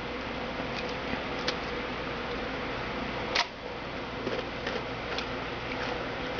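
Light ticks and taps of trading cards being handled and sorted, with one sharper click about three and a half seconds in, over a steady background hum.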